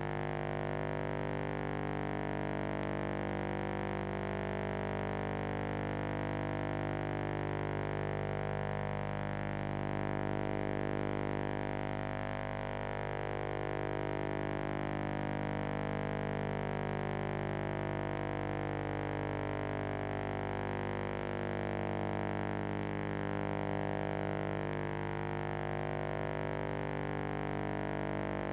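Background music: a synthesizer holding sustained chords, with a slow sweeping shimmer through the tone.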